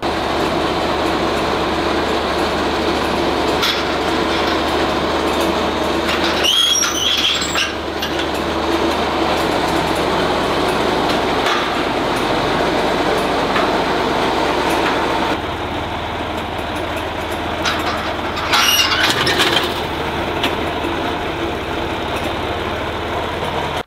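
John Deere farm tractor engine running steadily while its front loader with a square-bale grab lifts and carries a hay bale. Brief high squeaks come twice, about a third of the way in and again later.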